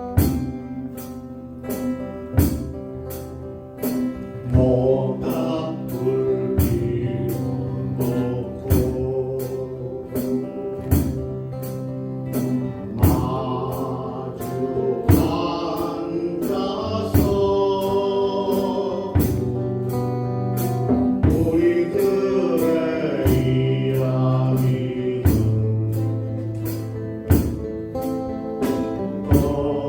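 A group singing a slow folk-pop song to strummed acoustic guitars, with a steady beat of about two strums a second.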